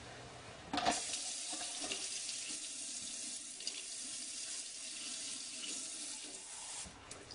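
A steady stream of hot water running for about six seconds. It starts with a knock about a second in and stops shortly before the end. The water is being added to rhassoul clay mud that has set too thick, to thin it.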